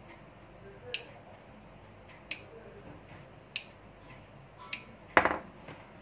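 Three-pin rocker switch clicking as it is rocked from side to side: four short sharp clicks about a second and a half apart. A louder knock comes about five seconds in.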